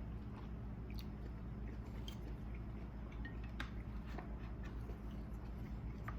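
A person chewing food with the mouth close to the microphone: faint, scattered wet mouth clicks over a steady low hum.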